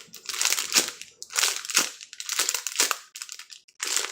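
Foam ice cream squishy toy squeezed over and over in the hands, a crinkly crushing noise with each squeeze, about five squeezes.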